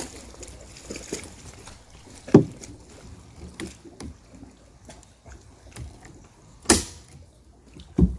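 Scattered knocks and bumps on a small fishing boat over faint water and open-air background, the sharpest knock coming about two-thirds of the way through.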